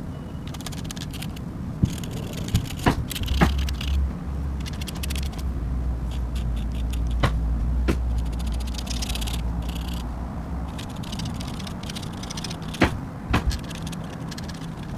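Pen nib scratching across paper in quick repeated hatching strokes, with a few sharp taps of the pen. A steady low rumble runs underneath from a few seconds in until past the middle.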